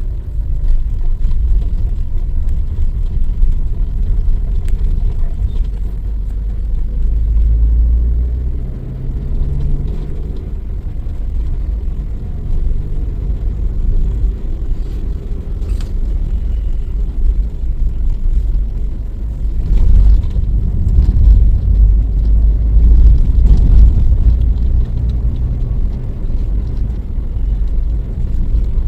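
Car driving, heard from inside the cabin: a steady low engine and road rumble as the car picks up speed.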